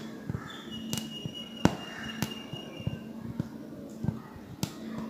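Aari hook needle punching in and out of taut fabric while working zari chain stitch, giving sharp, evenly spaced taps a little under two a second.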